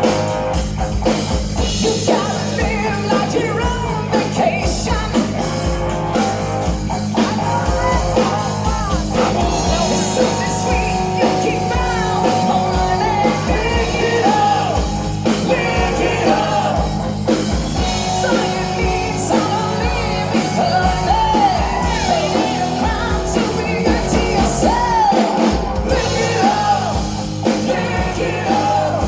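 Rock band playing live with a singer, a steady beat under the sung melody throughout.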